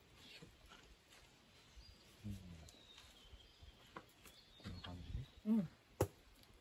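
Wooden spatula working ground meat and rice in a cast-iron pot, with two sharp taps about four and six seconds in. Short low vocal sounds come just before the second tap.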